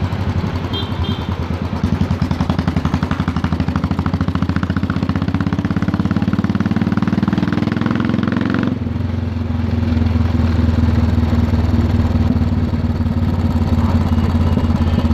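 Modified Royal Enfield Electra 350's single-cylinder engine through a loud exhaust, accelerating with its pitch rising for about nine seconds. The throttle then shuts suddenly and it drops to a lower, steady note as the bike rolls on.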